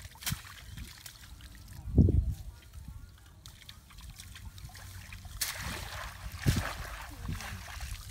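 Water sloshing and trickling as a cylindrical bamboo fish trap is handled in a shallow muddy ditch, with a dull low thump about two seconds in. In the second half, splashing and dripping as the trap is lifted out of the water.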